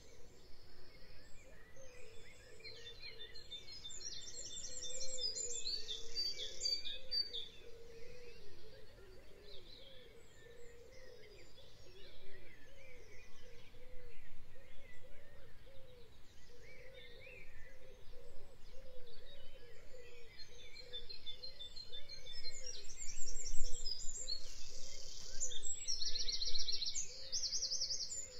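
Birds singing, with clusters of rapid trilled chirps a few seconds in and again near the end, over a steady background of noise.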